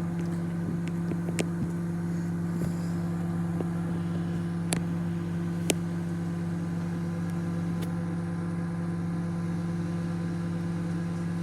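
Microwave oven running with a steady hum while a bag of microwave popcorn cooks inside, with a few scattered sharp pops as kernels begin to burst.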